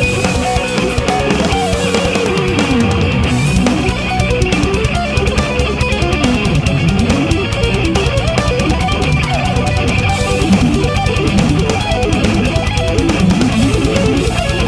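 Electric guitar playing fast sweep-picked arpeggios, runs of notes climbing and falling again and again in quick succession.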